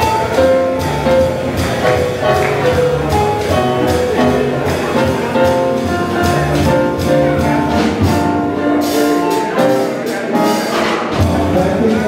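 A live jazz band playing: drums with cymbal strokes and a walking bass under held melody notes. The sound is loud and continuous.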